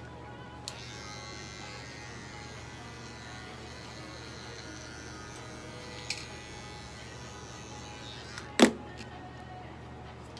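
Small cordless pet hair clipper running steadily while clipping a cat's fur. It starts just under a second in and stops about eight seconds in. A sharp knock follows just after it stops.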